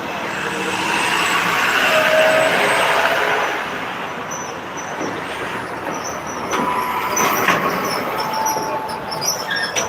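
Road traffic with a large vehicle passing. Its noise swells to a peak about two seconds in and then eases off into a steadier traffic din.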